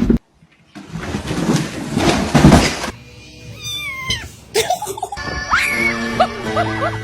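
A loud, noisy stretch lasting about two seconds, followed by a cat meowing in a few falling cries. Background music with held notes and a short melody starts about five seconds in.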